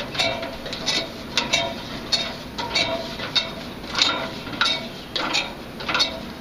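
A string of sharp metallic clanks and taps with a short ring, about two a second and unevenly spaced.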